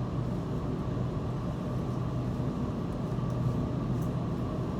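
Steady rumble of a Sydney Trains Waratah A-set electric train, heard from inside the carriage as it runs through a tunnel.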